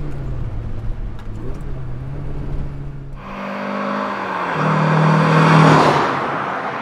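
A four-cylinder sports car's engine running steadily, heard from inside the cabin. About three seconds in, the sound switches to a sports car driving past at speed: its engine note and tyre noise build to a loud peak, then fade as it goes by.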